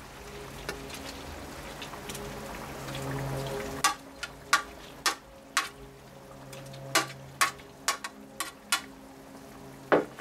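A string of sharp clicks and taps, roughly two a second, starting about four seconds in, over a steady low hum.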